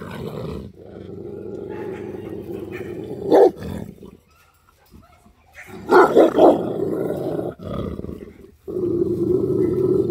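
Cane Corso growling and snarling as she pins a younger dog, in long low growls in three stretches broken by short, louder snarls a third of the way in and just past halfway. It is a display of dominance rather than a real fight: the other dog is not being hurt.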